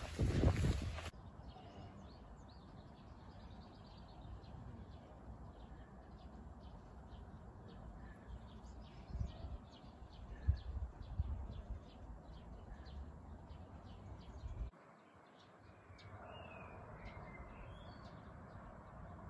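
Faint outdoor ambience with small birds chirping: a low steady rumble with scattered soft thumps, and a few short warbling bird calls near the end.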